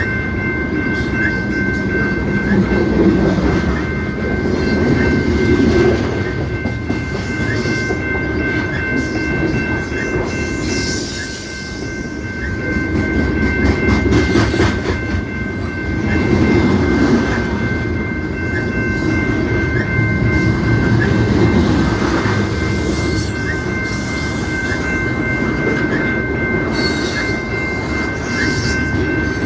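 CP Rail train cars rolling past with a heavy low rumble of wheels on rails and some clickety-clack, swelling and easing every few seconds as the cars go by, with a thin steady high tone underneath.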